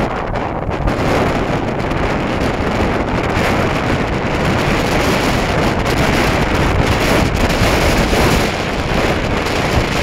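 Strong wind of well over 30 knots buffeting the microphone: a loud, steady rush of wind noise.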